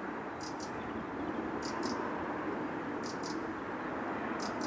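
Steady outdoor background rumble, like distant traffic, with a short high double chirp that repeats about every one and a half seconds.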